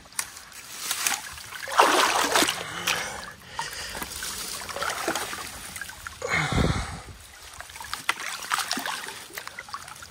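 Water splashing and sloshing in a shallow river as a wooden fish weir of stakes and switches is pulled apart by hand. There are louder splashes about two seconds in and again near seven seconds.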